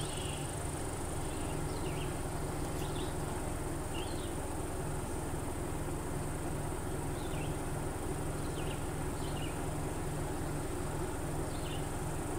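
Summer outdoor ambience: a steady high-pitched insect buzz, with short high chirps about once a second and a low hum underneath.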